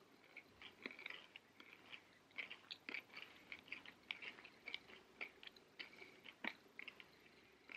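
Quiet close-up chewing of a candy-coated chocolate sweet, a candy corn M&M, with small crunches and clicks scattered throughout as the shell breaks.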